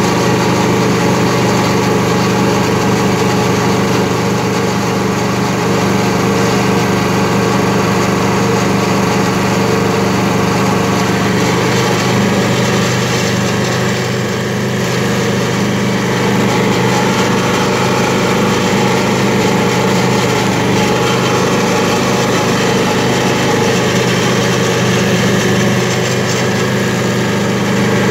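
Predator 28RX stump grinder running steadily, its cutter wheel chewing into a large sequoia stump: a constant engine drone under a hiss of wood being ground to chips.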